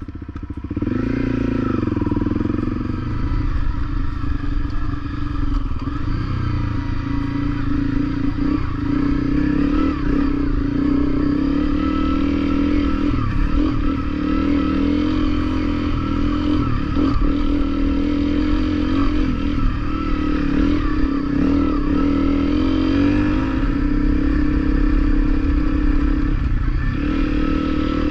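Honda CRF250L single-cylinder dual-sport motorcycle engine running as the bike is ridden over a rough dirt trail, its revs wavering up and down. The engine picks up about a second in, with occasional small knocks along the way.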